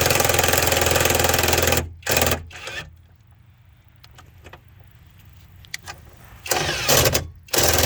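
Power impact wrench run in bursts, hammering as it drives a bolt into the window regulator bracket at a low power setting so as not to break the bolt, which is going in crooked. A long burst at the start, two short ones about two seconds in, a quiet gap, then two more bursts near the end.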